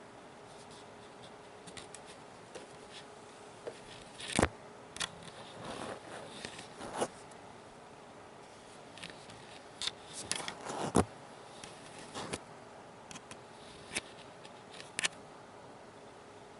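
Close-miked hands making scattered soft taps, clicks and brushing rubs, as in ASMR 'face touching' toward the viewer, with the two sharpest clicks about four and a half and eleven seconds in. A faint steady hum and hiss sit underneath.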